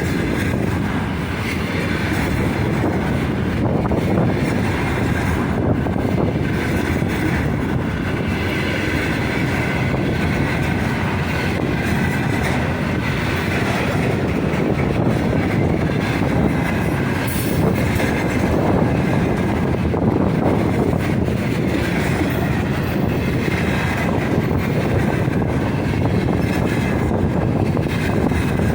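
A heavy freight train rolling past at speed: a steady rumble of wheels on the rails with clickety-clack from the wagons.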